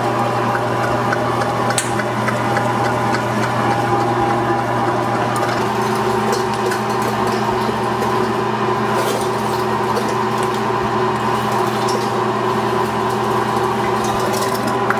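Large commercial electric meat grinder running steadily, grinding deer meat, with an even motor hum.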